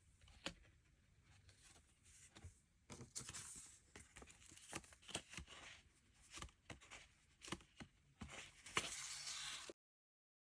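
Packaging being handled and torn open: rustling and crinkling with scattered sharp clicks, busiest toward the end, then cut off abruptly.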